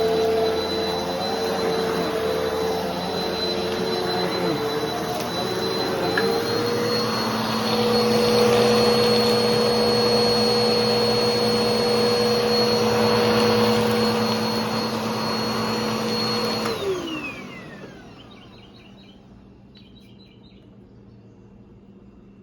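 Bissell PowerForce Helix Turbo Rewind Pet upright vacuum running, its pitch wavering during the first six seconds and then holding steady. About 17 seconds in it is switched off and the motor winds down with a falling whine.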